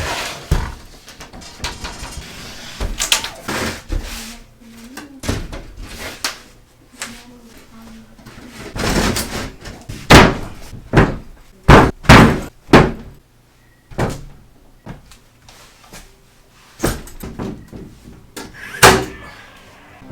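Irregular knocks and thuds of hand carpentry on wood: boards and 2x4 blocks being set in place and struck. A run of five hard strikes comes about halfway through.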